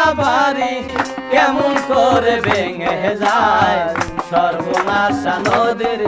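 A man singing a folk song, accompanied by tabla drum strokes and a harmonium holding steady tones under the melody.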